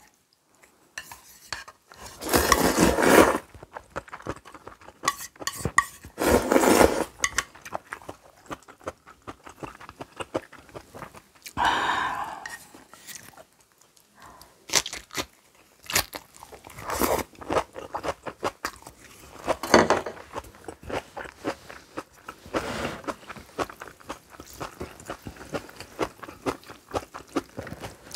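Close-miked eating of noodles and kimchi: several loud slurps of about a second each, with crunchy chewing and light clicks of utensils against a bowl in between.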